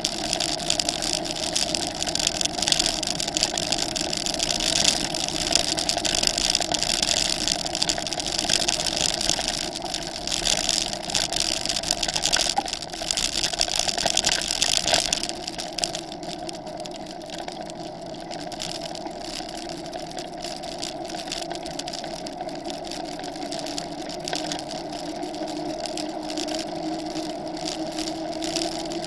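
Steady motor hum from the handlebar-steered vehicle the camera rides on, its pitch creeping up slightly near the end. For the first half it comes with loud rattling and crunching of tyres on a rough track, which quietens about halfway through as the vehicle moves onto smooth pavement.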